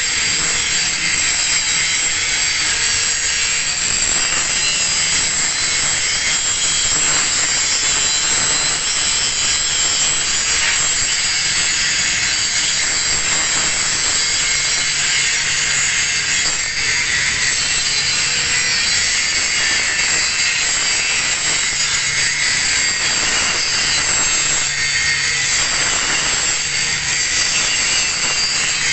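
Angle grinder grinding a single bevel onto a metal plate edge: a loud, continuous, hissing grind without a break.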